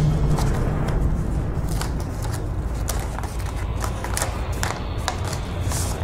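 Paper rustling and crackling in quick, irregular bursts as an envelope is handled, opened and its contents slid out, over a low steady rumble.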